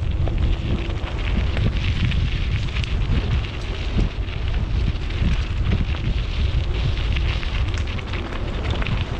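Wind buffeting the microphone of a camera carried on a moving bicycle: a steady low rumble, with a crackly hiss of many small ticks over it.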